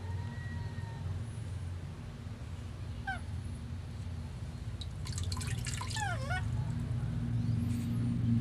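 Baby monkey, wet and cold while being bathed, giving a short falling squeal about three seconds in, then a longer run of falling squeals and cries midway through, over a steady low hum.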